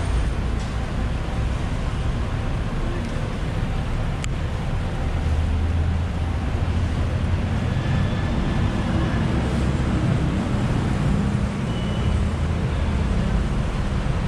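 Steady city street noise of road traffic running, with a single sharp tick about four seconds in.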